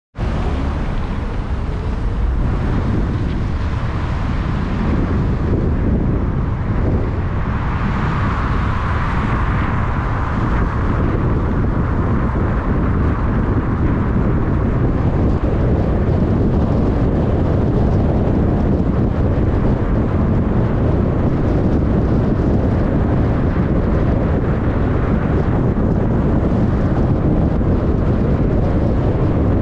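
Car driving: a steady low rumble of road and wind noise, with a passing swell of hiss about eight to ten seconds in.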